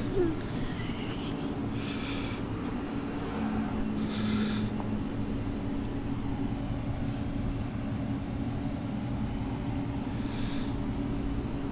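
Steady low hum of idling vehicle engines, with a few brief scuffing noises.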